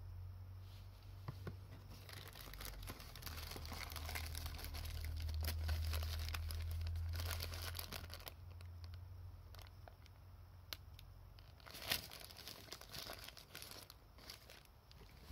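Paper pastry wrappers crinkling and rustling as cream puffs in paper sleeves are handled, with a sharp crackle about twelve seconds in, over a low hum in the first half.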